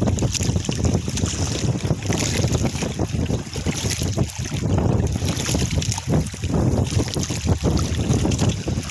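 Gusting wind rushing over the microphone at sea, with waves against a small outrigger boat.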